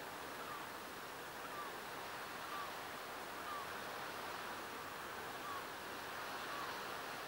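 Steady, gentle wash of sea surf. Over it, a faint short falling chirp repeats about once a second.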